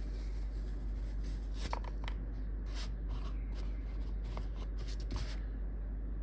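Rustling and light clicks of a wristwatch being lifted out of its box and packaging, with several sharper taps, stopping about five seconds in. A steady low hum lies underneath.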